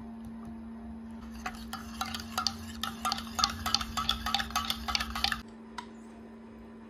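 Quick, irregular light clicks and clinks of small hard objects being handled, lasting about four seconds and stopping abruptly, over a steady low hum.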